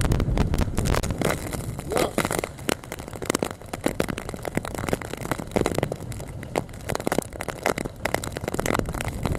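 Heavy rain striking the camera and boat: a dense, irregular run of sharp raindrop hits and crackles on the microphone, over the low, steady rumble of the boat's engine and wind.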